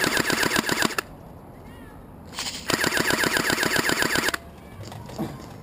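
Automatic airsoft rifle firing two rapid full-auto bursts: a short one of about a second at the start, then a longer one of about two seconds in the middle.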